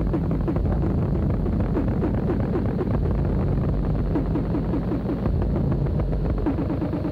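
Lo-fi ambient drone music: a dense, low rumbling drone with a quick repeating run of short notes above it, the notes crowding closer together near the end.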